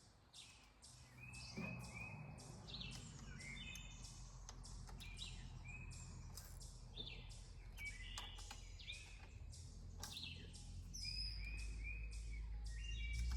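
Small birds chirping and twittering, many short high notes repeated throughout, over a low steady hum that swells slightly near the end.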